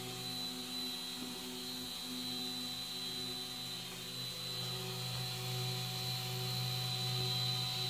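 CoreXY 3D printer running a print, its carriage riding on LM8UU linear ball bearings: a steady hum of several tones from the stepper motors and drive, the tones changing as the moves change, one dropping out about halfway through.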